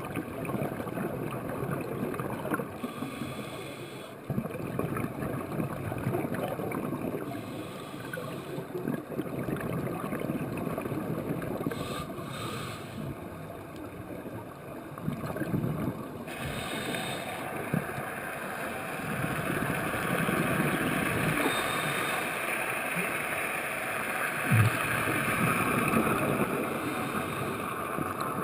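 Muffled underwater noise heard through a camera's waterproof housing, with scuba divers' exhaust bubbles gurgling every few seconds. A brief low thump comes near the end.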